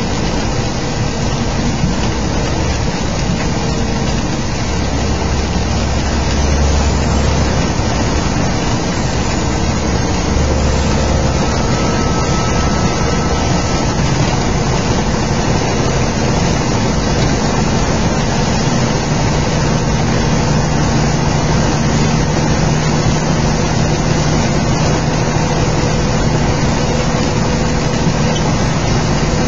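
Inside a semi-truck's cab driving at highway speed in heavy rain: a steady diesel engine drone mixed with the hiss of rain and wet tyre spray. A deeper rumble swells for several seconds about five seconds in.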